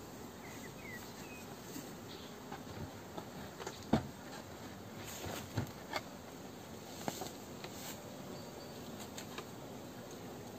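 Faint hum of honeybees around the hives, with a few light knocks and clicks from the wooden hive boxes and lids being handled, the sharpest about four seconds in.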